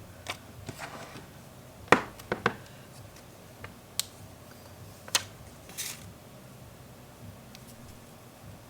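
Small parts of a screen-protector kit being handled on a desk: scattered sharp clicks and taps, the loudest about two seconds in, and a brief rustle near six seconds.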